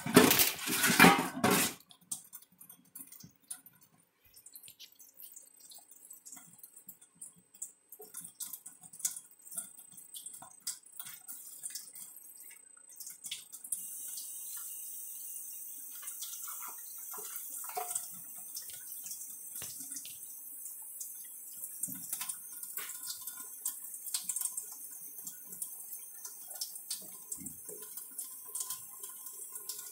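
Kitchen faucet running a thin stream into a stainless steel sink, with splashing, dripping and small knocks as a monkey's hands play in the water. Loud splashing for the first couple of seconds, then quieter scattered splashes, and from about halfway the steady hiss of the running tap.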